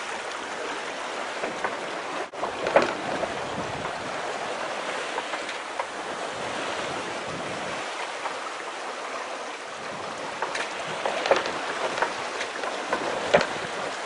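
Water rushing past the hull of a sailing yacht under way, a steady wash with a few sharper splashes near the start and toward the end.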